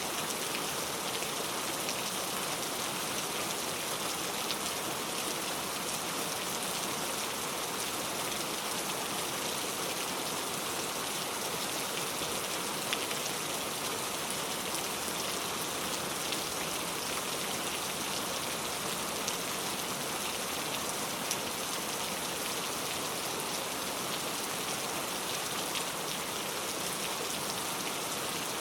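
Heavy rain falling steadily and tapping on a leaf-covered road, a dense even hiss with scattered individual drop ticks.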